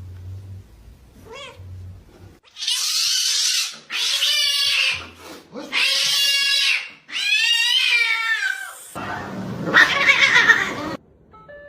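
A cat yowling: four long, loud drawn-out meows in a row, followed by about two seconds of harsh noise.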